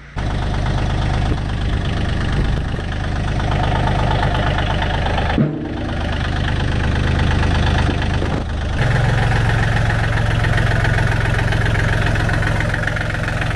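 John Deere 3032E compact tractor's three-cylinder diesel engine running steadily, with a brief break about five seconds in and a change to a fuller note about nine seconds in.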